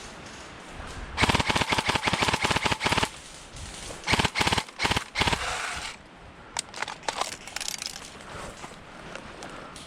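Airsoft gun firing on full auto: a rapid burst of about two seconds, then a few short bursts, then scattered single shots.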